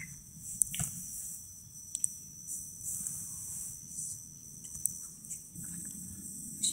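Insect chorus trilling steadily at a high pitch, with a few faint clicks and rustles.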